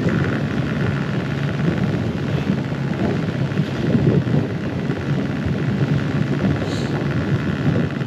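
Yamaha XJR1300 motorcycle's inline-four engine running steadily under way, heard together with wind on the microphone.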